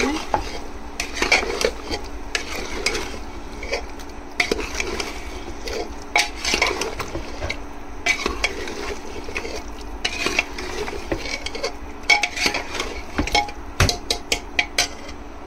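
Mutton frying in a pot with onions and spices being stirred, the spoon scraping and clinking irregularly against the pot over a light sizzle.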